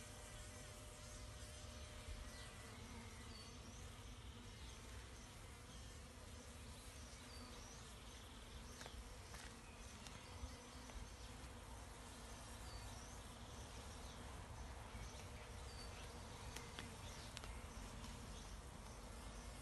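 Honeybees buzzing faintly and steadily as clusters of them crowd the landing boards of small wooden hive boxes.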